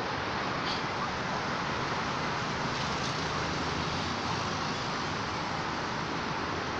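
Steady background hiss with no change in level, with a faint short high squeak about a second in.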